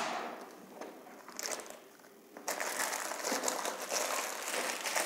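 Hard plastic pistol case being unlatched and opened: a sharp click at the start, then, about two and a half seconds in, a stretch of plastic rustling and scraping as the lid is lifted.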